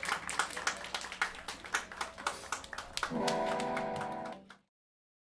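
Hand clapping and applause after a band's song, followed about three seconds in by a held chord from the amplified band for about a second and a half, which then cuts off suddenly.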